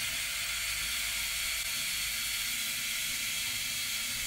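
Makita LXT cordless drill running steadily with an eighth-inch bit, boring a pilot hole for a self-tapping screw through the van's side panel: a steady, hissy whir.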